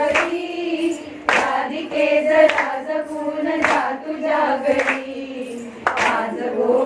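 A group of women singing a traditional Mangalagaur game song together in held notes, with sharp hand claps a little more than once a second keeping the beat.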